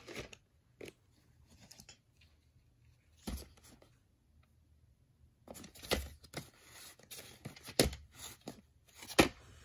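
Hands handling a VHS tape in a cardboard sleeve: a few sharp clicks and rustles as it is picked up, then a quiet moment, then busier clicking and rustling as it is turned over in the hand.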